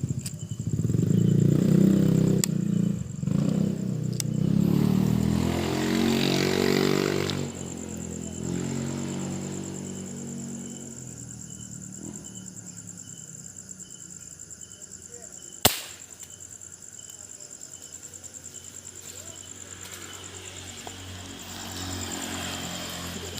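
A motor vehicle engine, likely a motorcycle, comes in loudly at once, runs for several seconds, then falls in pitch and fades away. A steady high chirring of insects continues throughout, and one sharp click comes about two-thirds of the way in.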